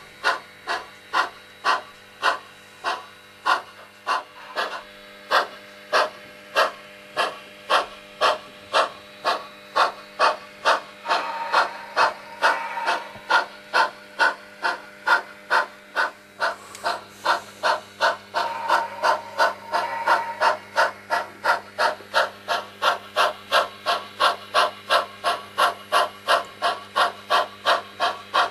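Sound decoder (SoundTraxx Tsunami) of an HO-scale Pennsylvania Railroad 0-6-0 switcher model playing steam exhaust chuffs through its small onboard speaker, about two a second and picking up to about three. A hiss swells under the chuffs twice in the middle.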